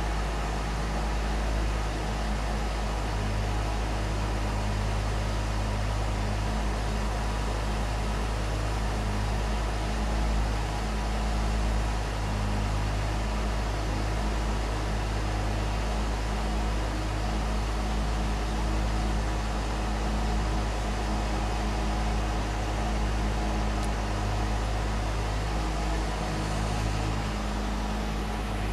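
Engine of an Oil&Steel aerial work platform running steadily with a low hum while the boom moves the basket.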